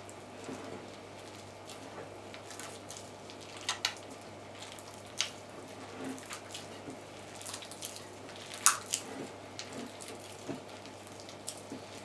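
Hands kneading crumbly pie dough of flour, egg, butter and water in a ceramic bowl: soft rustling and squishing with scattered sharp clicks against the bowl, the loudest nearly nine seconds in. A faint steady low hum underneath.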